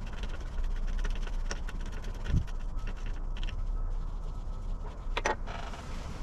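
Gloved hands fitting a spanner-type gland wrench onto the gland cap of a forklift's hydraulic tilt cylinder: faint metal clicks and scrapes, a dull thump about two seconds in and a short squeak about five seconds in, over a steady low rumble.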